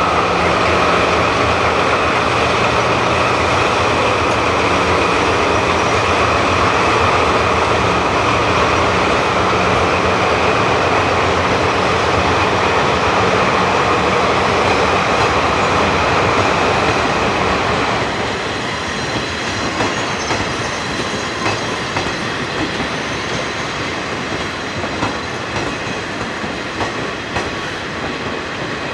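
Train moving along the track, led by a diesel locomotive: engine and a steady whine are loud for most of the first half, then drop away suddenly about two-thirds in. After that, wheels click over rail joints as the hauled cars roll on.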